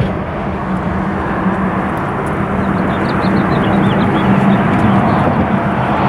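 Steady rumble of road traffic on the bridge, with a faint string of short high chirps in the middle.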